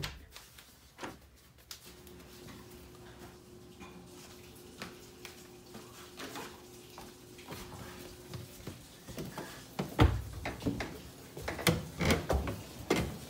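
Footsteps knocking and thumping on wooden stairs, an irregular run of steps starting about ten seconds in. Before that it is mostly quiet, with a faint steady hum for several seconds.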